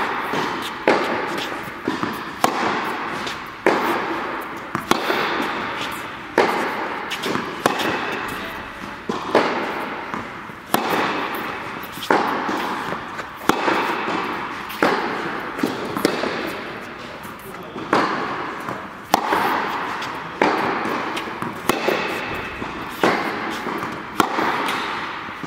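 Tennis ball struck back and forth in a groundstroke rally in an indoor tennis hall: sharp racket hits about every second and a half, each followed by a long echo off the hall.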